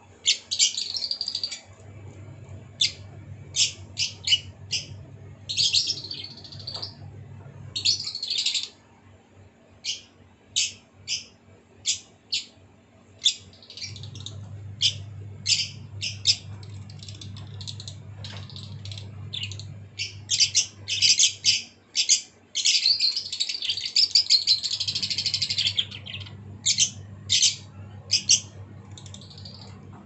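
Caged lovebirds chirping: a steady string of short, sharp, high chirps with bursts of busy chatter, the longest near the end. A low hum sounds underneath at times.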